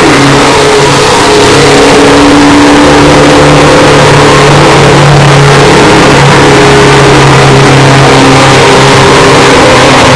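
Historic Formula 1 race car engine running at high, nearly steady revs, the pitch sagging slightly near the end. The audio is boosted until it clips, so it sounds heavily distorted.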